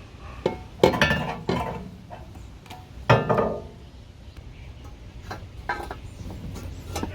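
Metal tools and parts clinking and knocking against each other, several separate strikes with a brief ring after them, the loudest about a second in and three seconds in.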